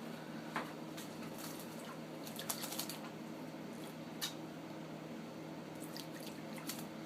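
Water dripping and splashing as a pet bird bathes: scattered sharp drips and splashes, several in quick succession about two and a half seconds in, over a steady low hum.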